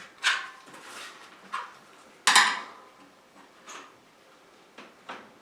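Bicycle tyre being forced by hand onto the wheel rim: a handful of short scrapes and knocks of the bead against the rim, the loudest about two seconds in.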